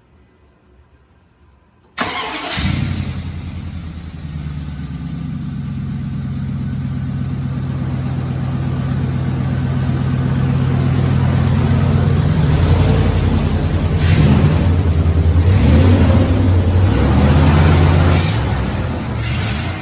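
2001 Dodge Ram 1500 pickup engine starting about two seconds in and then running steadily, growing gradually louder, with a few brief surges in the second half. It runs without the clicking of an exhaust leak, on freshly replaced exhaust manifold gaskets.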